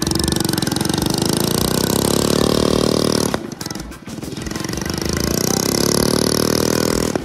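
Go-kart engine revving hard as the kart accelerates. It drops off briefly about three seconds in, then revs up again.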